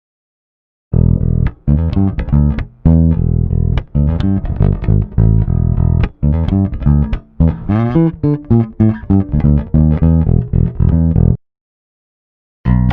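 Dyna KUSABI-II five-string electric bass (swamp ash body, two Dyna single-coil pickups) played in a busy line of short, separate plucked notes. The playing starts about a second in, stops for about a second near the end, then resumes.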